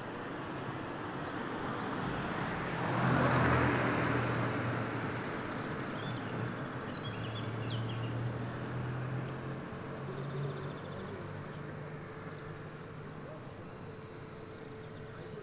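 A car passing on the street, its engine hum and tyre noise swelling to a peak about three seconds in and then slowly fading. A few short high chirps sound just after the peak.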